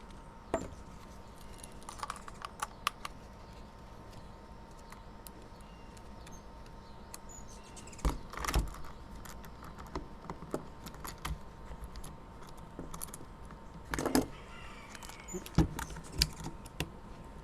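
Small metal parts of a mini chainsaw clicking and clinking while its bar and chain are fitted and the chain-tension adjusting screw is turned down by hand, with a few louder knocks about halfway through and again later.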